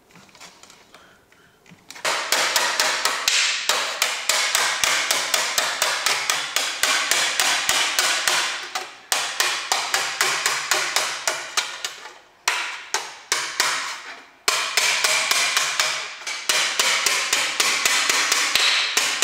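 Hammer blows on the edge of a small sheet-metal panel held on a steel table, starting about two seconds in and going on in quick runs of about five light strikes a second with a few short pauses, as the shrunk edge is finished off with the hammer.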